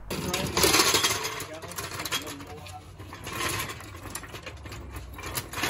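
Steel floor jack being rolled and worked into place on rough asphalt, a continuous rattling metal clatter of close-packed clicks.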